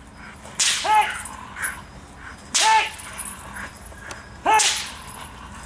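Rottweiler barking in deep, single barks, three times about two seconds apart: agitation barks at a protection-training helper in a bite sleeve.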